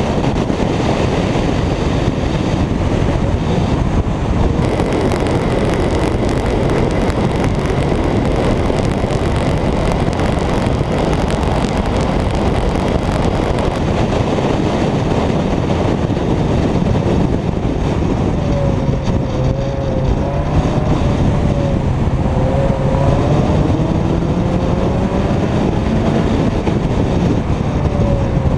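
Mazda MX-5 at speed on a track: heavy wind rush on the microphone over road and engine noise. In the last third the engine note comes through, its pitch wavering and then rising near the end as the car accelerates.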